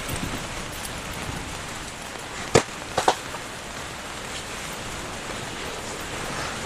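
Steady rain and wind hiss, broken by two sharp knocks about two and a half and three seconds in.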